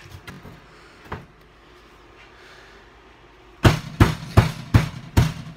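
Hand slapping a paper towel down onto a kitchen countertop to soak up spilled milk: five sharp slaps in quick succession, about two or three a second, starting a little past halfway, after a few faint knocks.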